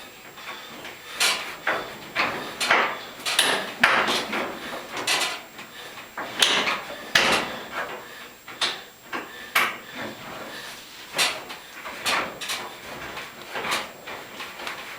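Irregular knocks, clicks and clatter of tools and metal parts being handled during repair work on a gas dryer, about one or two sharp knocks a second.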